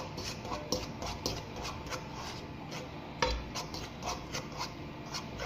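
A kitchen utensil clinking and scraping against a skillet, scattered light clicks with one louder knock a little over three seconds in.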